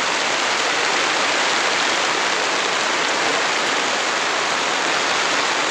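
Steady rain falling on wet ground and puddles: an even, unbroken hiss.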